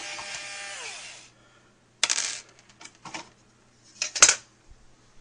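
Intro sound effect: a ringing hit whose tones slide downward and fade over about a second, then clinking clatters about two seconds and about four seconds in, with a few light clicks between.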